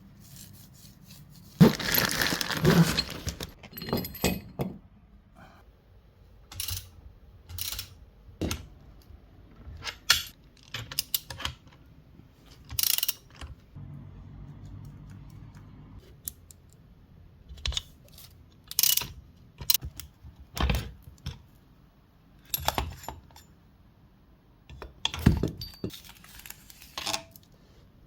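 Metal tools and parts being handled: irregular clinks, clanks and jangles, with a denser clatter near the start.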